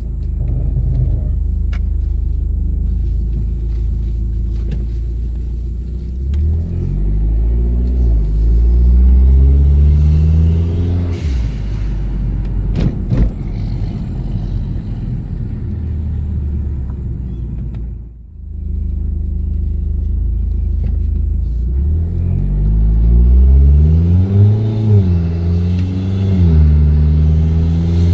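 Hyundai Genesis Coupe's turbocharged four-cylinder engine accelerating hard, heard from inside the cabin with a window down. The engine pitch climbs and drops back at each gear change, and the sound cuts out briefly when the throttle is lifted about two-thirds of the way in.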